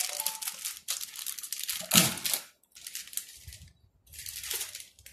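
Plastic packaging crinkling and rustling as it is handled and pulled off a part, in about five short bursts with pauses between them, the loudest about two seconds in.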